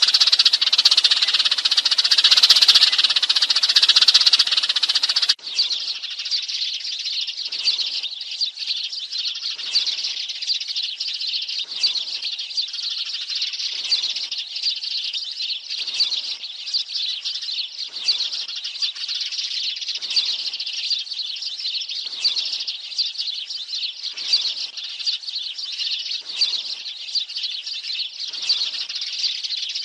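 A flock of Eurasian tree sparrows chirping and chattering densely: a sparrow flock-call recording used as a decoy to lure sparrows. About five seconds in it switches abruptly to a slightly quieter chorus with a sweeping note repeating roughly every two seconds.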